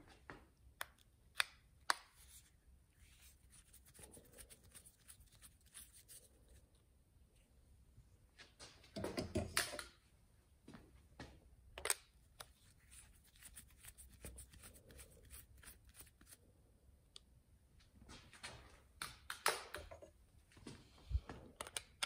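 Phillips screwdriver working the small screws out of a removed motorcycle ignition switch's plastic housing: faint scattered clicks and handling scrapes, with louder scraping about nine seconds in and again near the end.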